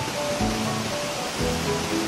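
Music with a low bass note about once a second under a simple melody, over a steady rush of splashing water from pool fountains and sprays.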